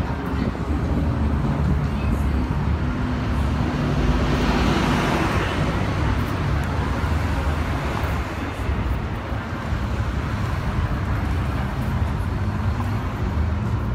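Road traffic passing on a busy city street: a steady rumble of engines and tyres, with one vehicle passing close and louder about four to six seconds in.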